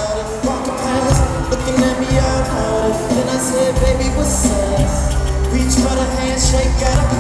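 Live band music with keyboards, drums and cymbals and a male singer on a handheld microphone. A deep bass comes back in strongly about four seconds in.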